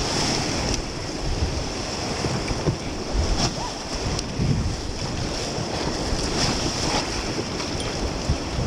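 Rushing whitewater of a flooded river rapid heard from inside a raft, with waves crashing around the boat, a few sharp splashes, and wind buffeting the microphone.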